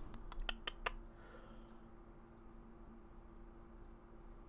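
Computer keyboard and mouse clicks: a quick run of about five clicks in the first second, then a few faint, scattered ticks, over a low steady hum.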